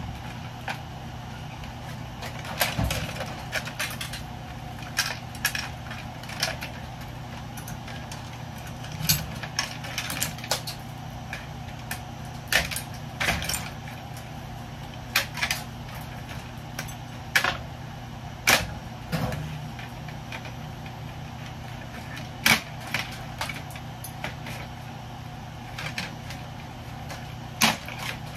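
Irregular metal clinks and knocks of hand tools and loose parts as an electrical panel is dismantled for scrap, over a steady low hum.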